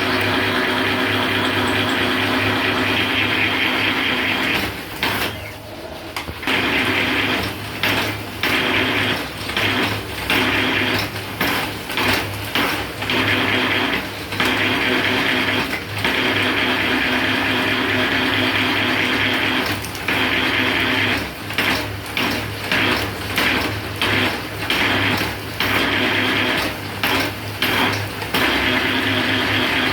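Bamboo satay-skewer rounding machine running: a steady motor hum under a loud rushing noise. The rushing noise drops out briefly many times, most often in the second half.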